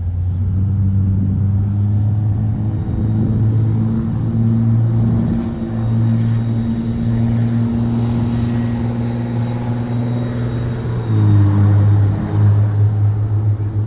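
A small engine running steadily with a low hum; about eleven seconds in its pitch shifts and it gets louder.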